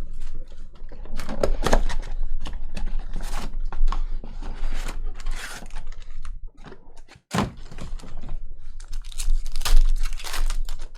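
Trading-card packs being opened and cards handled: tearing and crinkling of wrappers with many quick taps and knocks of cards and packs on the table.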